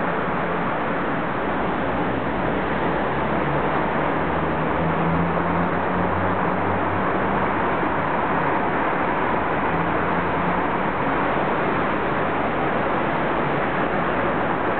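Steady street traffic noise from cars passing below, with a low engine hum swelling about four to seven seconds in and briefly again near ten seconds.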